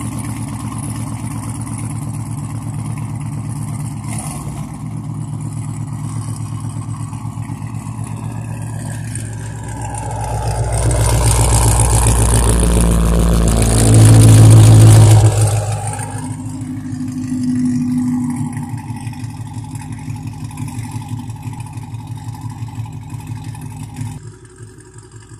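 2017 Camaro SS's 6.2-litre V8 running through an aftermarket full exhaust, idling shortly after a cold start. About ten seconds in it is revved and held, loudest around fourteen seconds, then falls back to idle at about sixteen seconds, with a smaller blip soon after.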